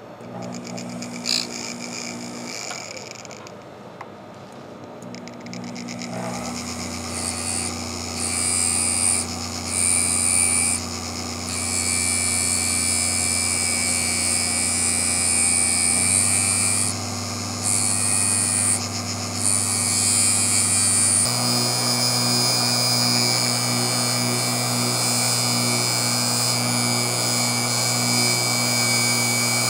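Handheld rotary tool spinning a thin non-reinforced abrasive cutoff wheel, grinding relief into a steel lathe tool bit held in a vise. A steady motor whine runs under a hissing grind that drops out briefly several times as the wheel comes off the work, and the motor pitch steps up twice in the second half.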